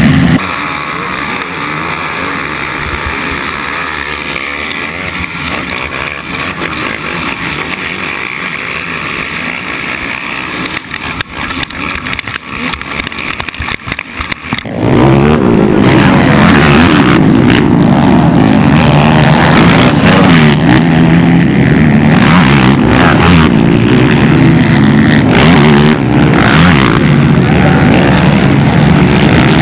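Engines of a pack of racing ATVs (quads) running hard. About halfway through, the sound jumps suddenly much louder and closer.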